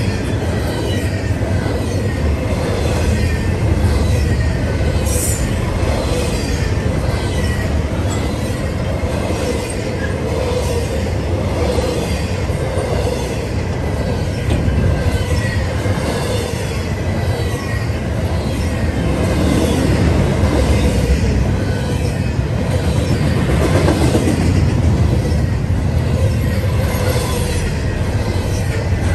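Double-stack intermodal freight train's well cars rolling past close by: a steady loud rumble and clatter of steel wheels on the rails, with faint steady high whining tones from the wheels.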